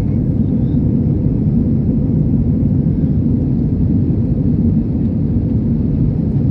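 Steady low rumble of an airliner, even and unchanging throughout.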